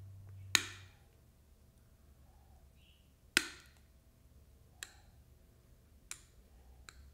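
Cutting pliers snipping the molded flashing off a small artificial eye ring: five sharp clicks, the two loudest about half a second and three and a half seconds in, then three fainter snips.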